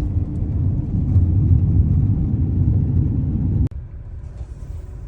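Low, steady rumble of heavy diesel harvest machinery running, which drops suddenly to a quieter rumble with faint hiss about three and a half seconds in.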